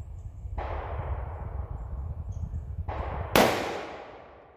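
A single shot from a Howa 1500 bolt-action rifle fitted with a muzzle brake, about three seconds in: a sharp crack whose echo tails off over about a second. A low, steady rumble runs underneath.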